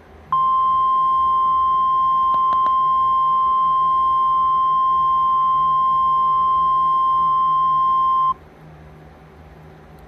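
Emergency Alert System attention tone from a mock child-abduction alert: one long, steady, high beep that starts abruptly and cuts off sharply after about eight seconds, played through a screen's speaker.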